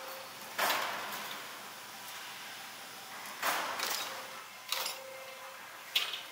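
Roll-forming line machinery running: four short mechanical strokes, each starting suddenly and fading over about half a second, over a faint steady machine hum.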